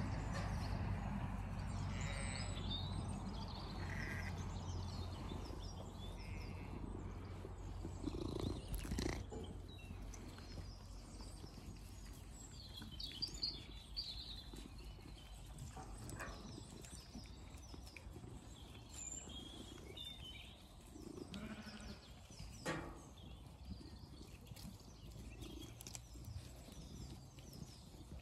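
A flock of Zwartbles sheep feeding at a trough, with a few short bleats among the sounds of the animals moving and eating.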